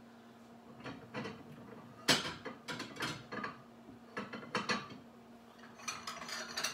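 Kitchenware being handled: a run of short clattering knocks and rattles, the loudest about two seconds in, with another cluster near the end.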